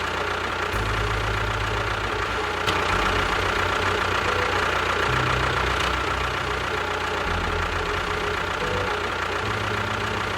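A machine running steadily, with an engine-like drone.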